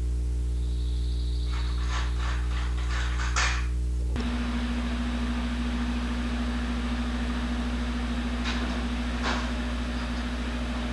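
A steady mechanical hum with a few light clicks. About four seconds in it changes abruptly to a different steady hum with a hiss over it.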